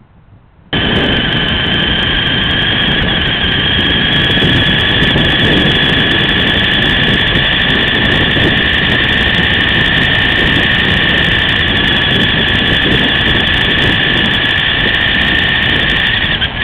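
Latrax RC car's small electric motor whining steadily at speed over a dense rumble of tyres on tarmac, heard close through the car's onboard camera microphone. It starts abruptly under a second in.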